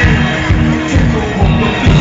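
Loud dance music played over a club sound system, with a steady kick-drum beat about two times a second.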